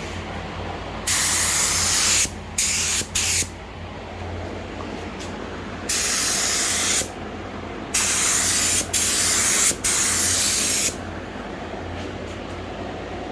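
Compressed-air spray gun spraying high build primer in short trigger pulls: seven sharp-edged bursts of hiss, each up to about a second long, starting and stopping abruptly, over a steady low hum.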